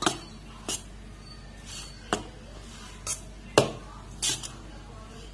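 Steel spoon stirring steamed rice-flour puttu in a stainless steel bowl, clinking against the bowl about six times at uneven intervals, loudest a little past halfway.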